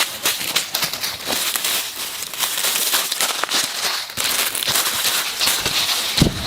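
Pork ribs cooking, giving a dense, steady crackle of many small pops and a hiss.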